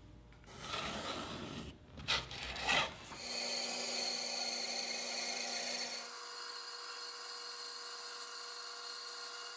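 Pencil scratching along a Douglas fir table leg, then two sharp knocks. After about three seconds a band saw runs steadily, cutting a curve into the fir leg, its tone shifting about halfway through.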